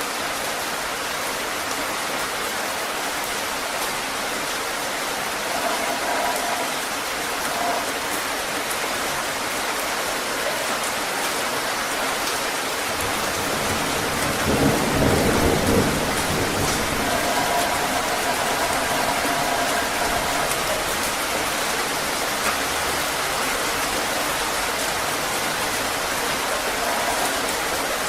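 Heavy rain falling steadily, with a low roll of thunder about halfway through.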